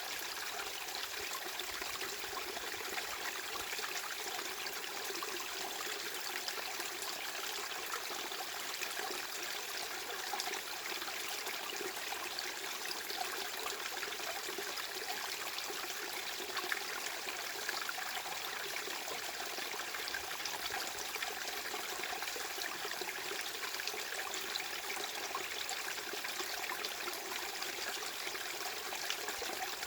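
Steady white-noise masking sound: an even rushing hiss with a fine, flickering texture and no deep rumble, unchanged throughout.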